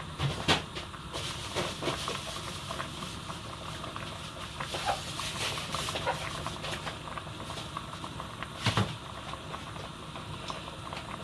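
Pots of soup boiling on the stove, a steady bubbling with scattered small clicks. Two louder knocks, about half a second in and near the end.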